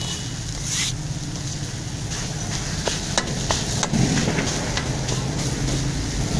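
Shredded chicken being scraped and gathered on a hot tawa with a wooden-handled metal scraper, over a faint sizzle. The scraper's blade clicks sharply against the griddle a few times about three to four seconds in.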